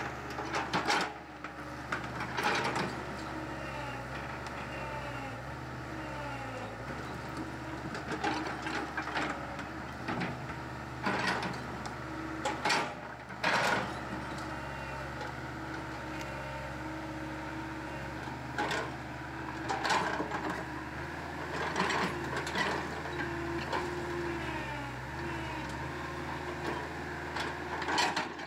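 Caterpillar hydraulic excavator running steadily at work, its engine drone shifting slightly in pitch, with about a dozen sharp cracks and knocks scattered through as it breaks down trees and brush.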